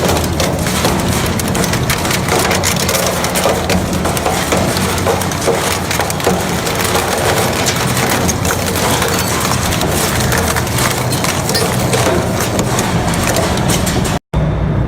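An industrial shredding machine crushing material, with a continuous dense crackle and splintering snaps over the steady hum of its drive. The sound cuts out abruptly near the end.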